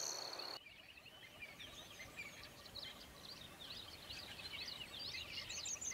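Crickets trilling, cut off suddenly about half a second in; then faint chirping of small birds, many quick short calls.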